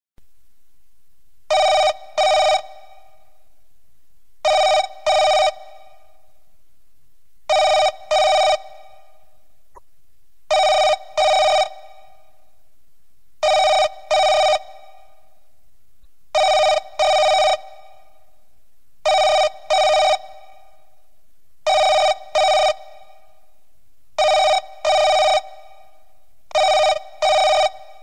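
Telephone-bell ringtone sounding a double ring, 'tring tring', repeated about every three seconds, ten times over.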